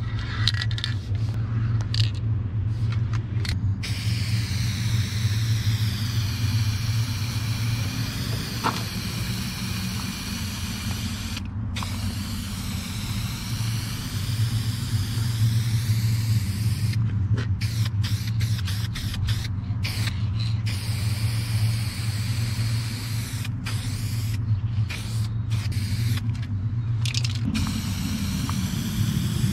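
MTN 94 low-pressure aerosol spray paint can fitted with a wide transversal fatcap, hissing as paint is sprayed onto a wall. It sprays in one long unbroken stroke for the first half, then in shorter strokes with brief stops. A steady low rumble runs underneath.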